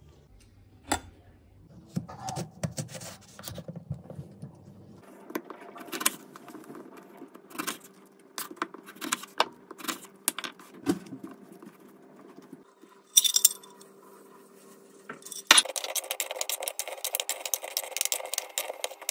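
Kitchen knife cutting lemons on a wooden cutting board: a run of separate knocks and taps as the blade meets the board. From about three-quarters of the way through, a denser stretch of rapid clattering and scraping takes over.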